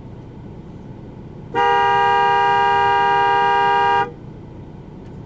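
A car horn sounding one steady, unbroken blast of about two and a half seconds, starting about a second and a half in, over a low rumble of vehicle noise.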